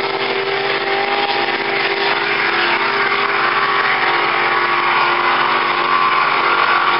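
Engines of two inboard racing powerboats running at full speed on the water: a steady, loud engine drone that grows slightly louder as the boats go by.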